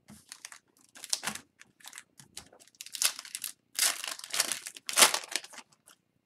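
Foil wrapper of a hockey card pack crinkling as it is torn open and the cards are pulled out. The crinkling comes in irregular bursts and is loudest in the second half.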